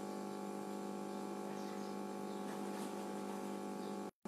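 Steady electrical hum made of several unchanging tones, with faint short high sounds now and then; it cuts out completely for a moment near the end.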